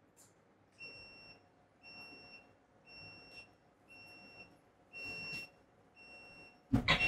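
RiEye Mk2S operating table beeping steadily, a short high beep about once a second while both arrow buttons are held: the signal that its synchronization reset is in progress. A loud thump comes near the end.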